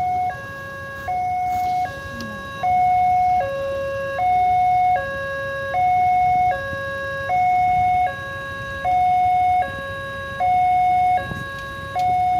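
Indonesian railway level-crossing alarm of the common 'pasaran' type, at a slightly fast tempo, sounding a two-tone hi-lo signal: a higher tone and a lower tone alternate, each held about three-quarters of a second, the higher one louder. It is the warning that a train is approaching, with the barrier down.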